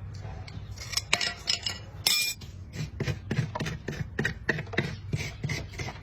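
Farrier's metal tools working on a horse's hoof: irregular sharp clicks, snips and scrapes, with one louder metallic clink that rings briefly about two seconds in.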